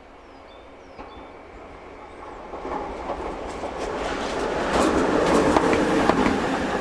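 Siemens Vectron electric locomotive running light, passing close by: a rising rush of wheels on rail that peaks about five seconds in, with a run of sharp clicks as the wheels cross rail joints, then begins to fade.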